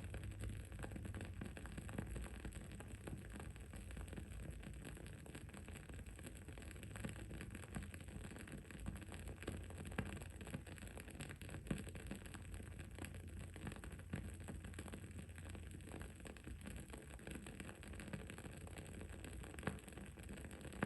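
Wood-wick candle burning, with irregular soft crackles and pops over a steady low hum.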